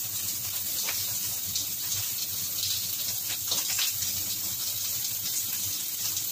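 Pork cheek sizzling steadily in a hot nonstick wok over a gas burner, with a few faint spatters. It is frying in its own fat, with no oil added.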